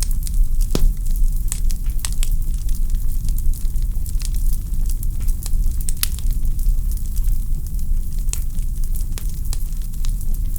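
Wood logs burning in a fireplace, crackling with frequent sharp pops and snaps over a steady low rumble of the flames.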